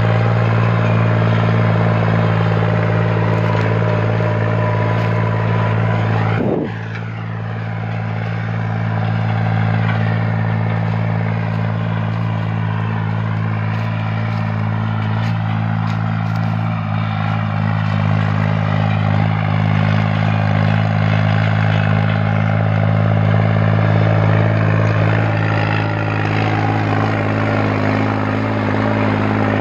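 New Holland 3630 tractor's three-cylinder diesel engine running steadily under load, pulling a double disc harrow through dry tilled soil. About six seconds in the sound drops suddenly in loudness, then the same steady engine note carries on.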